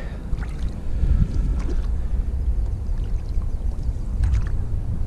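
Inflatable boat under way on calm lake water: a steady low rumble, with a few faint light splashes.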